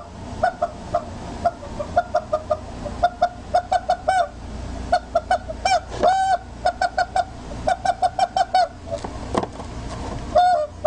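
Squeezed rubber chicken toy squeaking in quick runs of short squeaks, with a couple of longer squawks about four and six seconds in.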